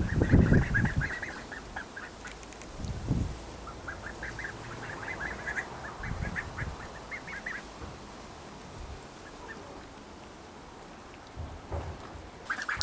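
Young Welsh Harlequin ducklings peeping in short, rapid high calls, in busy clusters through the first seven seconds or so and sparser after. A few low rumbles come through, the loudest right at the start.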